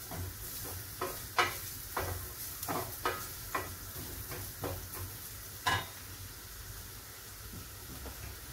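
Carrots and vegetables sizzling in a stainless steel frying pan while a wooden spatula stirs them, knocking and scraping against the pan about a dozen times over the first six seconds; after that only the sizzle goes on.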